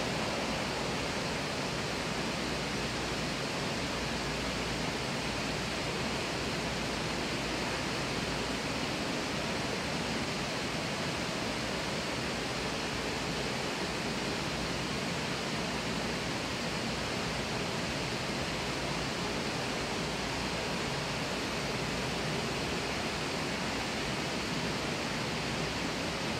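Steady, even rush of running water from an indoor rock-lined water feature, with a low rumble underneath and no changes.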